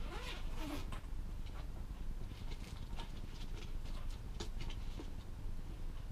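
Low steady room hum with scattered faint, irregular clicks and ticks.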